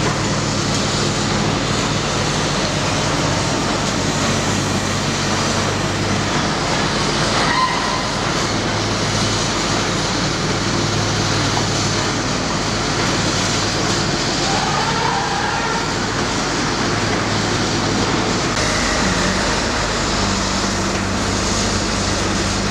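Heavy demolition excavators' diesel engines running with a steady drone, the low note shifting a couple of times. Continuous rumbling and grinding of concrete being broken up runs under it.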